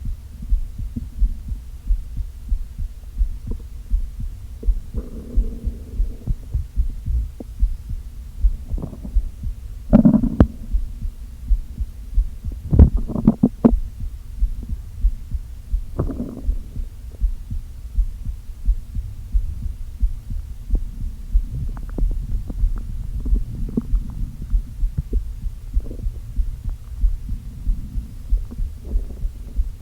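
Hungry, empty stomach growling: several gurgles and rumbles, the loudest about ten seconds in, then a quick cluster of short ones and smaller gurgles later, over a steady low pulse-like thumping.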